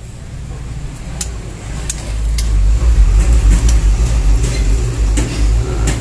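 A low, fluctuating rumble that swells about two seconds in and stays loud, with a few faint, very short high ticks above it.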